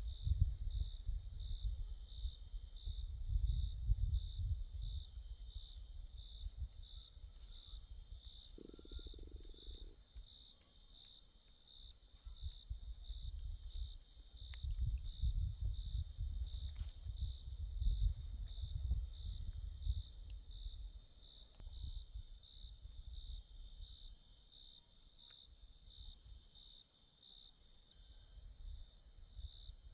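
Night insect chorus: steady high trilling with one voice pulsing about once a second. Under it a low rumble swells and fades.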